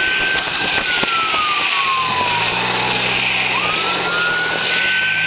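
Police siren wailing slowly, rising, holding and falling, then climbing again about three and a half seconds in. Underneath is a steady loud rush of wind and road noise with the scrape of boot soles skidding on asphalt as a person is dragged alongside a speeding car. A low hum comes in briefly in the middle.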